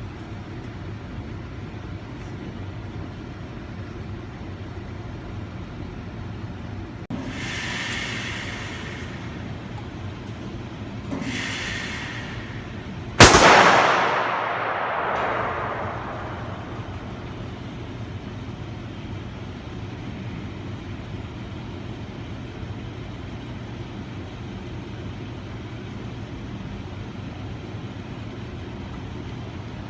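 A single loud gunshot about 13 seconds in, its echo dying away over two to three seconds, over a steady low hum. Two softer swells of noise come a few seconds before the shot.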